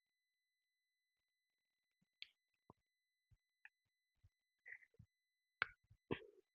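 Near silence with a faint steady high-pitched tone. From about two seconds in come scattered small clicks and taps of plastic model-aeroplane parts being handled and pressed together, the loudest two near the end.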